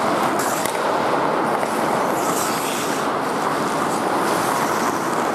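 Ice hockey rink ambience during play: a steady noisy rush of the arena with skates scraping the ice, a brief hissy scrape about half a second in and another about two and a half seconds in.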